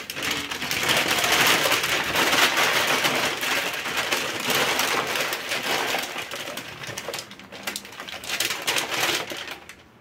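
Brown kraft paper being crumpled and folded by hand around a plastic plant pot: a dense, crackling rustle that eases off near the end.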